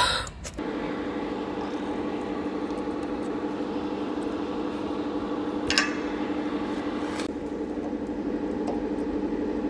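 A brief loud burst, then a steady machine hum holding a few even tones, with a short metallic clink about six seconds in.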